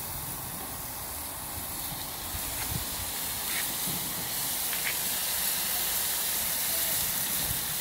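Marinated chicken wings sizzling on a hot barbecue grill grate, a steady hiss, with a couple of light clicks about halfway through.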